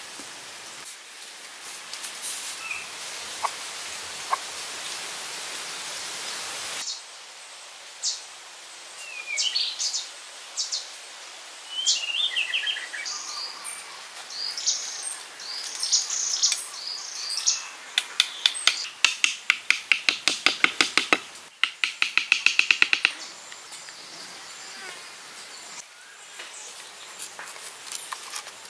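Birds chirping outdoors over a steady hiss that stops about seven seconds in. Past the middle comes a fast run of evenly repeated sharp clicks lasting several seconds.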